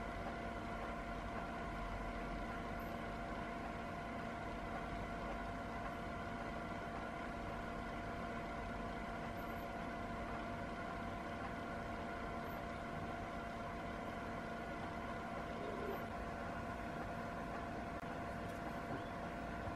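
Steady machine hum: a low rumble with a few held tones over it.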